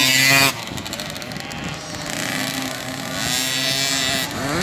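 Small 50cc two-stroke automatic youth motocross bikes running on the track, their engine notes rising and falling with the throttle. The sound is loud at first and drops off sharply about half a second in as the nearest bike pulls away, leaving other bikes running at a distance.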